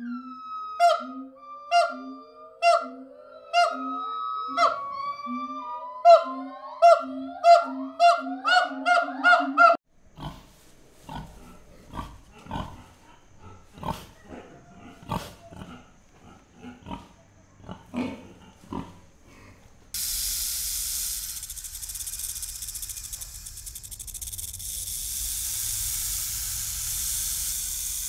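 Three animal sounds in turn: a monkey giving a series of short pitched calls that come faster toward the end; then a group of pigs grunting in short, irregular grunts; then, from about two-thirds through, a cobra hissing steadily.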